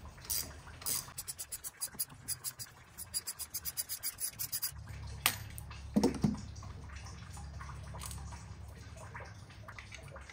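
Hand-tool work on an engine's water neck: a quick, even run of small sharp clicks, about seven a second, for some three seconds, then a low steady hum with a couple of knocks around the middle.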